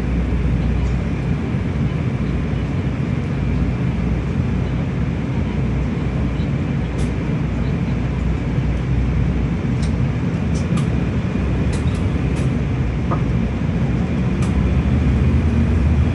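Airport ramp bus driving across the apron, heard from inside the cabin: a steady engine and road rumble with a faint whine, and light clicks or rattles now and then in the second half.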